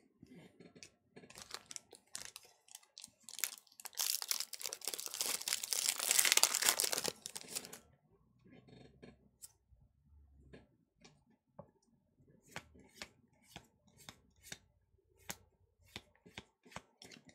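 A foil trading-card booster pack torn open, a loud ripping and crinkling lasting about four seconds from around four seconds in, followed by the cards inside being flicked through one at a time with short, light snaps.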